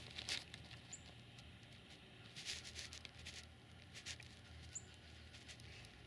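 Crows cawing faintly a few times, short harsh calls spaced about a second apart, over quiet open-air ambience.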